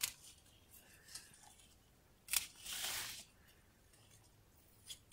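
Lower leaves being stripped off tomato plants: a few faint sharp snaps, the clearest about two and a half seconds in, followed by a brief rustle of foliage.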